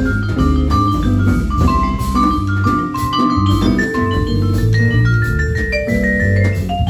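Jazz quartet of vibraphone, guitar, electric bass and drums playing, the vibraphone out front with a running line of ringing mallet notes over a stepping bass line and drums.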